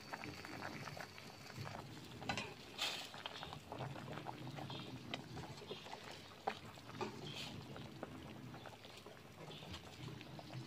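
Pot of tom yum soup boiling: faint, steady bubbling and popping, with a few louder sharp knocks a little over two seconds in as a metal ladle stirs through it.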